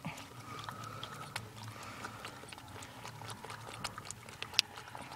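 Pet raccoon drinking water: a run of small, irregularly spaced clicks and smacks, with one sharper click about four and a half seconds in.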